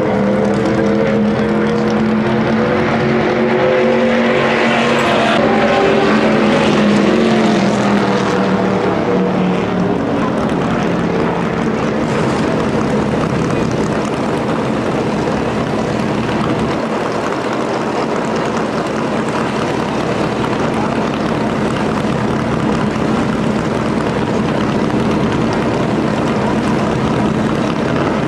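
Stock car V8 engines running loudly at idle, a steady drone whose pitch wavers slightly and that swells a little around six seconds in.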